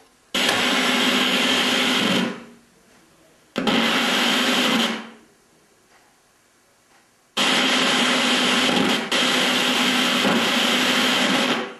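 Analog television's speaker hissing with static from a channel with no usable signal. The hiss comes in three stretches, each cutting in abruptly and dying away, with quiet gaps between.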